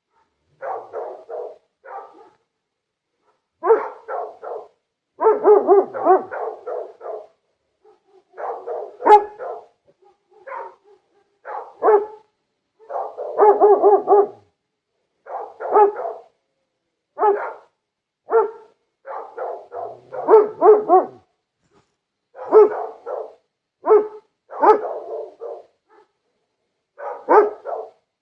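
Dog barking in repeated bursts, short quick runs of barks with pauses of a second or two between them.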